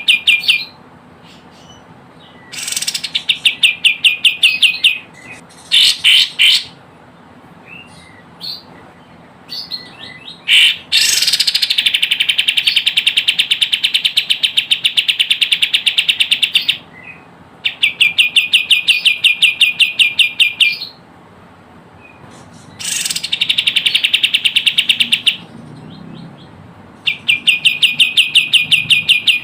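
Kapas tembak bird calling: rapid trills of sharp, high repeated notes in bursts of two to four seconds, with one longer trill of about six seconds midway and a few short single chirps in the gaps.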